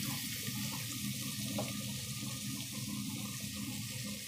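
Chopped onions frying in hot oil in an open aluminium pressure cooker, a steady sizzle.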